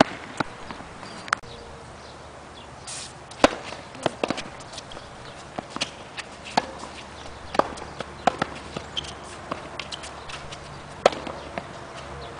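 Tennis balls struck by racquets and bouncing on a hard court during a baseline rally: sharp pops every second or so, loudest about three and a half seconds in and again near the end.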